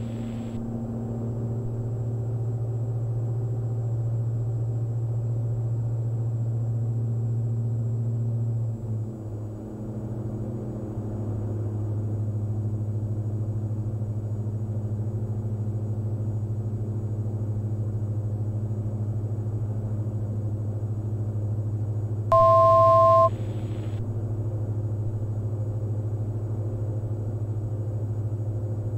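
Cabin drone of the Diamond DA42 NG's twin turbo-diesel engines and propellers in the climb. The drone is steady, wavers and settles at a slightly different pitch about nine seconds in. About twenty-two seconds in, a loud electronic two-tone beep sounds for about a second.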